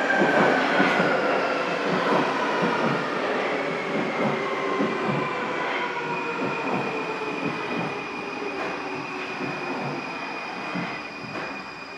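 Munich U-Bahn electric train pulling into an underground station and slowing. Its motor whine falls in pitch over rumbling wheels with regular clicks over rail joints. The whole sound fades as it slows, leaving a steady high whine in the second half.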